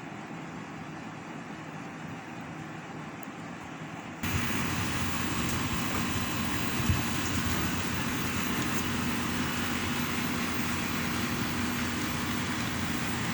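Steady mechanical running noise that jumps abruptly louder about four seconds in, with a steady low hum under it after the jump and one sharp click about seven seconds in.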